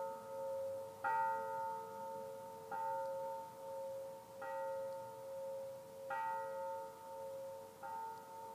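A bell struck five times at an even pace, about every second and a half. Each strike rings on in steady tones that overlap the next one.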